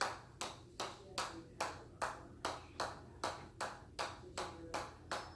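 A ball bounced over and over on the head of a hammer, a steady rhythm of about two and a half sharp, ringing taps a second.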